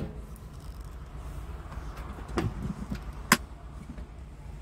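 Scania R tractor unit's diesel engine idling, a steady low rumble heard from inside the cab. It is broken by sharp knocks right at the start and about three seconds in.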